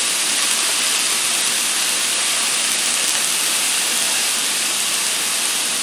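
Strips of summer squash sizzling steadily in olive oil in a frying pan: an even hiss with no breaks.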